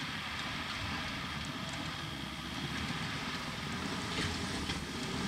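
Off-road 4x4 vehicle's engine running in a steady low rumble, with a few faint ticks about four seconds in.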